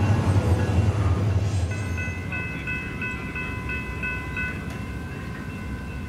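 A passing train's low rumble fades in the first couple of seconds. It gives way to steady ringing tones that pulse a few times a second, typical of a railroad grade-crossing warning bell sounding for an approaching train.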